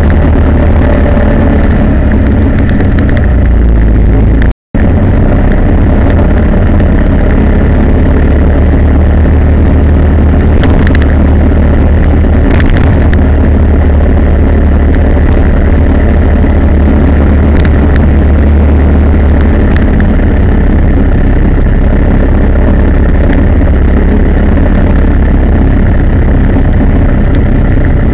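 Vehicle engine and road noise heard from on board while riding: a loud, steady low rumble that cuts out completely for a moment about four and a half seconds in.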